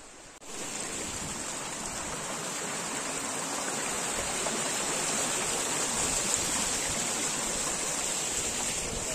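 Steady rush of flowing water, as from a stream or small waterfall, starting abruptly about half a second in.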